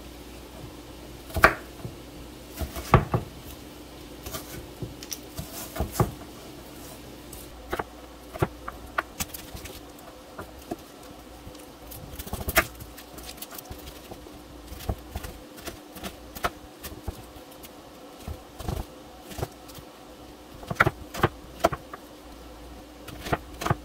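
Chef's knife slicing an onion into strips on a wooden cutting board: irregular knocks of the blade against the board, some louder than others, over a faint steady hum.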